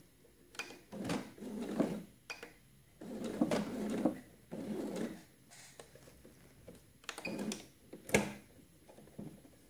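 Electronic sewing machine stitching in short runs of about half a second to a second, stopping and starting several times as the fabric is guided slowly under the foot, with a sharp click about eight seconds in.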